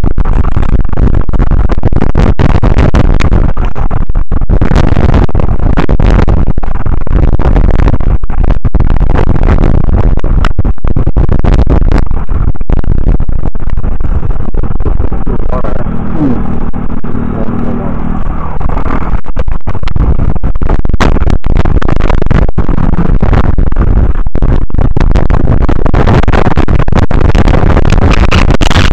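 Strong wind buffeting the microphone, loud and distorted, over rough water. It eases briefly just past the halfway point, where a faint low hum shows through, then picks up again.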